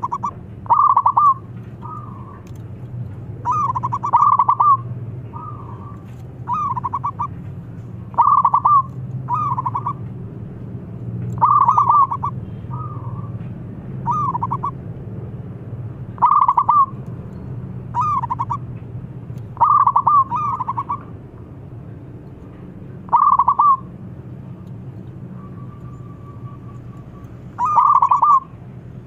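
Zebra dove (perkutut) cooing: a string of short, rapidly pulsing coo phrases, about a dozen, each under a second long and spaced one to three seconds apart, some fainter than others. A steady low hum runs beneath.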